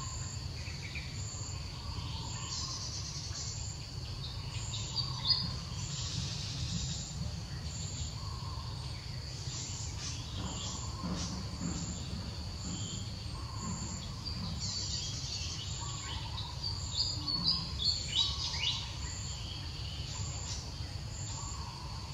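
Forest ambience: insects chirping in a steady pattern that repeats about once a second, with scattered bird calls over a low steady rumble. A few louder short calls come about five seconds in and in a cluster near eighteen seconds.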